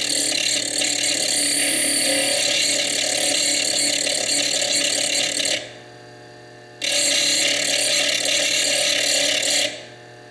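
Foredom bench lathe grinding into fire agate, a harsh gritty noise as the tool bites the stone. It breaks off for about a second around six seconds in, resumes, and stops again near the end, while a faint steady hum carries on under it.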